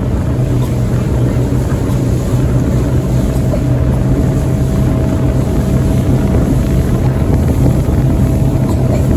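Rigid inflatable boat running at a steady cruising speed: its engine gives a steady low drone with a fainter higher tone above it, over a constant rush of wind and water.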